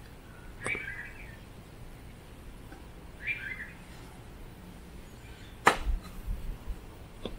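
Outdoor ambience under a steady low background noise. A bird gives a short chirping call twice, a few seconds apart. A sharp click followed by a few low thumps is the loudest sound, with a smaller click near the end.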